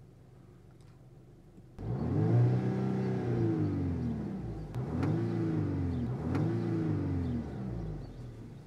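Volkswagen Scirocco R's turbocharged 2.0-litre four-cylinder engine revved three times while standing, the pitch rising and falling each time. The first rev starts abruptly and is the longest, followed by two shorter blips.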